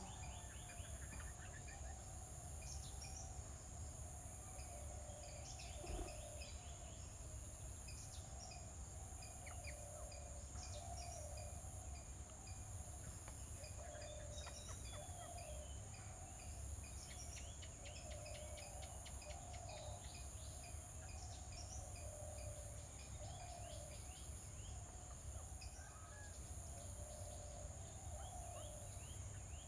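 Many small birds chirping and calling in short scattered notes, over a low steady rumble and a steady high-pitched whine.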